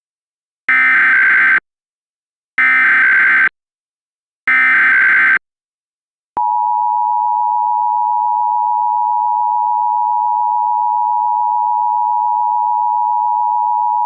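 Emergency Alert System (EAS) tones: three identical screeching SAME digital header bursts of about a second each, then a steady two-tone attention signal (853 and 960 Hz together) that holds for about eight seconds. Together they announce the start of an alert, here a Required Monthly Test.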